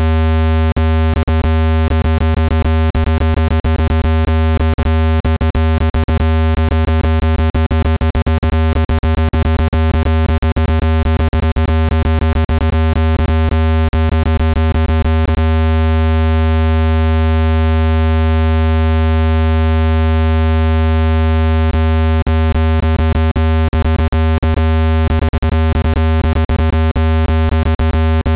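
Speaker-cleaning tone: a loud, steady, low electronic hum with many overtones, meant to shake dust out of a phone or speaker grille. Irregular crackling clicks run through it, stopping for several seconds mid-way.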